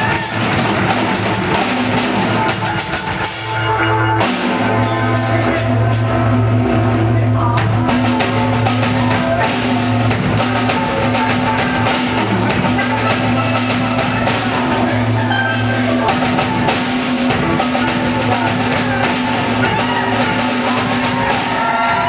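Steel pan band playing a lively tune over a drum kit beat, with sustained low bass notes underneath.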